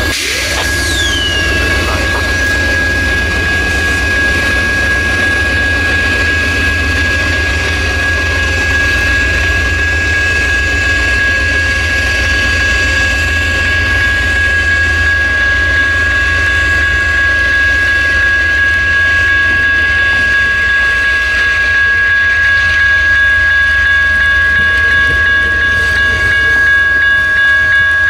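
Amtrak passenger train of Superliner bilevel cars rolling past as it pulls out, a steady rumble that grows slightly louder as it gains speed, with a steady high-pitched whine throughout.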